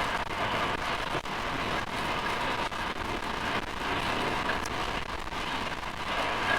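Steady riding noise from a Honda CRF450RL dual-sport motorcycle under way: wind rushing over the microphone, with the bike's engine and tyres underneath.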